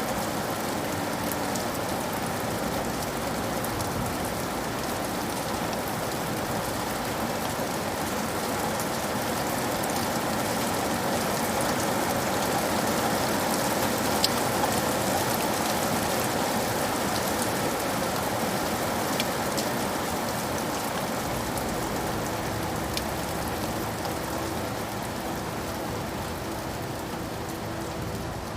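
Steady rain falling, an even hiss with occasional sharper individual drops ticking.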